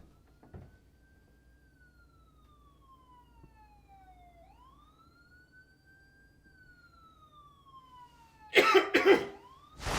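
A siren wails faintly in slow rising and falling sweeps, then a person coughs loudly twice near the end.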